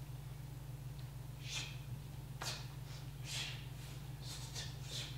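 Short hissing swishes, about five in a few seconds, from two dancers moving on a bare stage, over a steady low hum.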